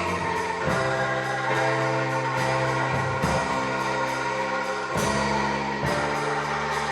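Angklung ensemble playing a tune: held bamboo notes that change about once a second, each with a fast rattling tremolo from the shaken tubes.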